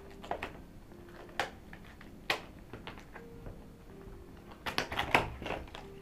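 Scissors snipping and plastic-and-cardboard packaging crackling as a combination padlock is cut out of its blister pack: sharp separate snaps, a few spaced out, then a quick cluster near the end.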